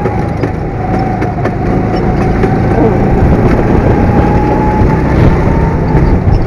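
Go-kart's small engine running at speed from the driver's seat, a dense steady rumble with a thin whine held through it.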